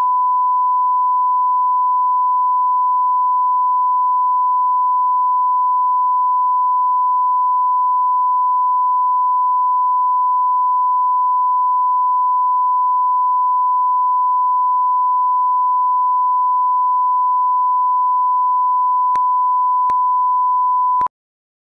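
Steady 1 kHz line-up test tone, a single pure pitch at constant loudness, played with colour bars as the broadcast reference level; it cuts off suddenly just before the end.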